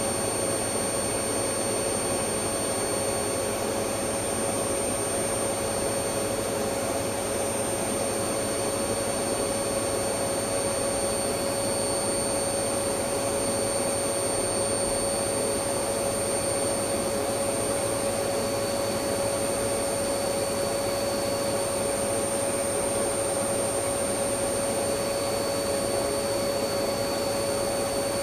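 Electric vacuum cleaner running continuously at a constant speed: a steady rushing of air with a motor hum and a faint high whine, unchanging throughout.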